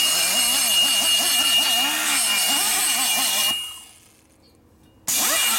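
Die grinder with a cutter working metal in the port of an aluminium motorcycle cylinder head, its pitch wavering up and down as the cutter bites. It runs for about three and a half seconds, stops, and starts again near the end.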